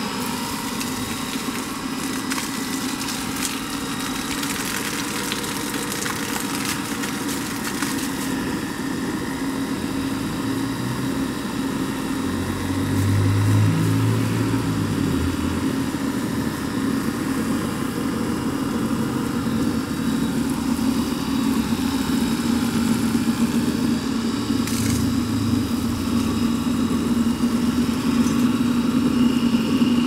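Washing-machine motor driving a centrifugal water pump through a belt and pulleys, switched on at the start and then running with a steady hum. The pump is primed and delivering water through a hose at good flow and pressure.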